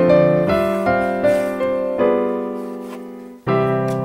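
Background piano music: a melody of struck notes, each fading away. It breaks off briefly about three and a half seconds in, then starts again.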